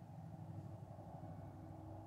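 Faint, steady low mechanical hum of a running motor.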